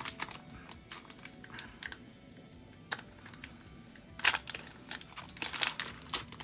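Handling of a foil Pokémon booster pack and its cards: scattered light clicks and crinkles, growing busier and louder about four seconds in.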